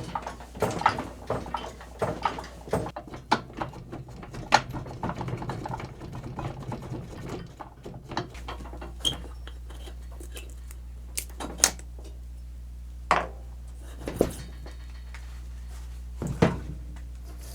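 Metal tools and snow blower parts clinking and knocking during hands-on repair work. The clatter is dense for the first half, then gives way to a few separate sharp knocks over a steady low hum.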